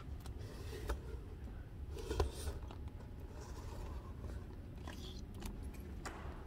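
Handling noise from a phone camera being picked up and moved: scattered light clicks, knocks and rustles over a low rumble, the loudest knock about two seconds in.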